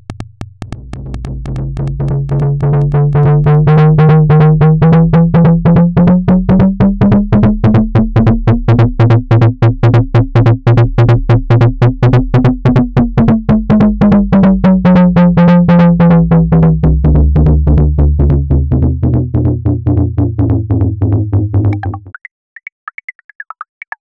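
A simple synthesizer pulse signal run through the DIALS plugin's passive band-pass filter, modelled on the Allison Labs 2A: a fast, even train of pulses ringing with a deep resonant tone that rises slowly in pitch and then falls again. It cuts off about 22 seconds in, leaving fainter, higher clicks.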